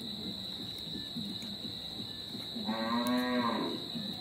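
A single drawn-out low animal call lasting about a second, near three seconds in, with a slightly arching pitch. It sounds over a steady high-pitched whine in the background.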